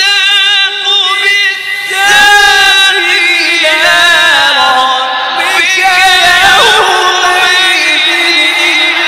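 A man reciting the Quran in the melodic tajweed style through a microphone, holding long ornamented notes that bend up and down with no breaks between words.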